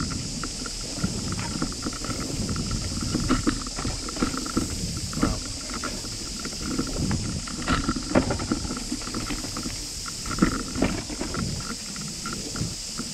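Bicycle rolling fast over a bumpy dirt trail: a steady rumble of tyres on dirt, with frequent sharp knocks and rattles as it jolts over roots and bumps, and some wind on the microphone.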